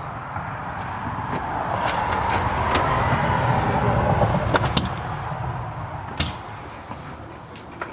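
A road vehicle passing by, growing louder to a peak about halfway through and then fading away, with a few sharp clicks over it.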